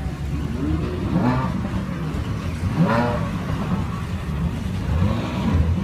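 Supercar engines revving as an Audi R8 pulls away and a Ferrari 360 Spider rolls in at low speed. The engine note is blipped up and back down three times, about one, three and five seconds in, over a steady low engine note.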